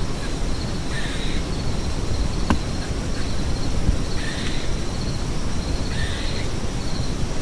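A crow cawing three times, a couple of seconds apart, over a steady low rumble and a high pulsing insect trill. A single sharp click comes about two and a half seconds in.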